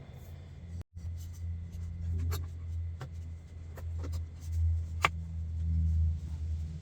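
A few light clicks and taps, the sharpest about five seconds in, over a steady low hum.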